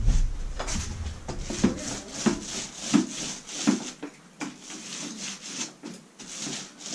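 Paint roller rolled back and forth over a wall, a repeated hissing stroke about three times every two seconds.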